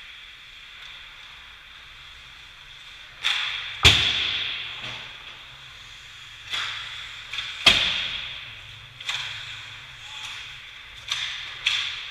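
Ice hockey play heard from the rink glass: puck and stick hits against the boards and glass, two loudest about four and eight seconds in and several lighter ones, each ringing on in the arena's echo, over the scraping hiss of skates on ice.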